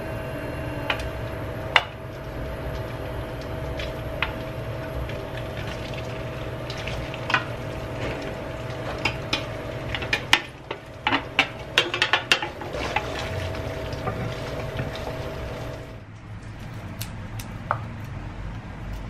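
Wooden spatula scraping and tapping flaked smoked fish off a metal tray into hot oil in a pan, over the steady hum of an induction cooktop, with a quick flurry of clicks and scrapes about ten to thirteen seconds in. Near the end the hum stops and there are only a few soft clicks of garlic cloves being peeled.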